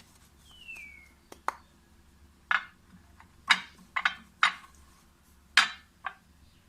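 Spoon and dishes clinking and knocking: about eight short, sharp taps with a brief ring, spaced irregularly, with a short falling squeak near the start.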